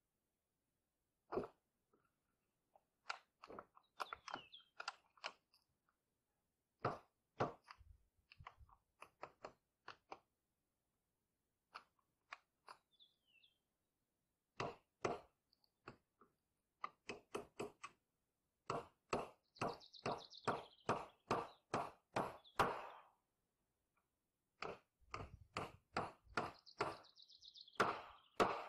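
Hammer driving nails into the wooden planks of an outhouse door. Single and scattered blows at first, then two quick runs of about four blows a second in the second half, with a high ringing that drops in pitch as each nail goes in.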